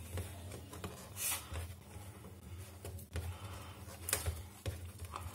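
A seal sticker being scratched and peeled off a smartphone's cardboard retail box: short hissy scrapes about a second in and again about four seconds in, with light taps and clicks of the box being handled.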